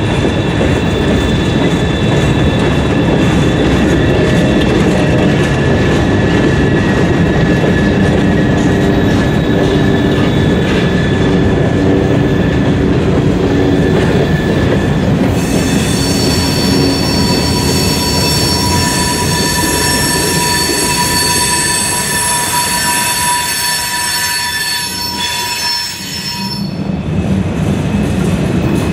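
Freight cars rolling past on a curve: a continuous low rumble of the wheels on the rails, with steady high-pitched wheel squeal from the flanges grinding against the curved rail. The squeal grows sharper and reaches higher from about halfway through, and the low rumble dips briefly near the end.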